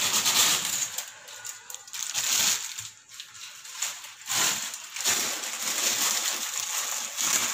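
Dry chowmein noodles going into a steel pot of hot water: splashing and rustling handling noise in several bursts with short pauses.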